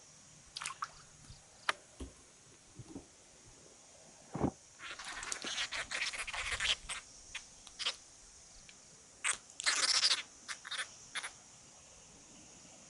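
Freshly landed yellow-head catfish croaking in rasping bursts of rapid pulses, one longer burst about five seconds in and a shorter one near ten seconds, with scattered short clicks between them.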